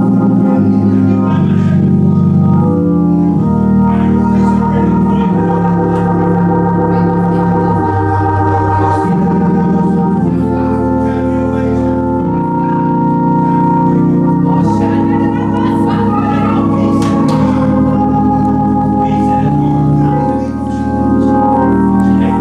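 Organ playing sustained chords, moving to a new chord every second or two.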